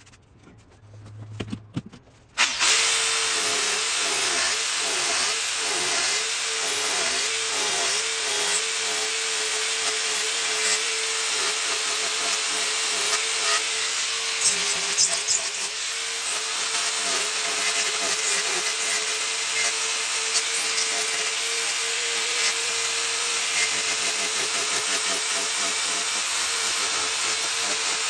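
Angle grinder starting up about two and a half seconds in and running steadily as its disc grinds into the wood. Its motor whine wavers and dips as the disc bears into the board.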